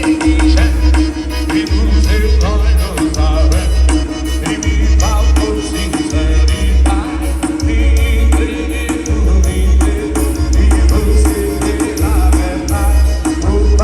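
A Brazilian song played loud, with a heavy, pulsing bass line and a steady beat.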